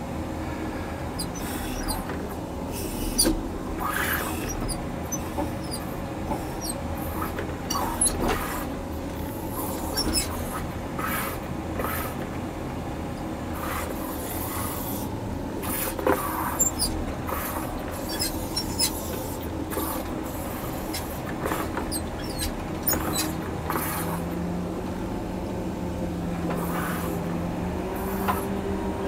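John Deere 670G motor grader's diesel engine running steadily under load, heard from inside the cab, with frequent irregular squeaks and clicks over it. A higher steady engine tone comes in near the end.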